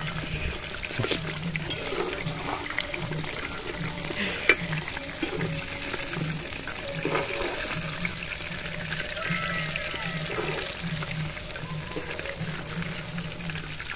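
Cabbage and crushed-chip balls deep-frying in hot oil, a steady sizzle, with a single sharp click about four and a half seconds in.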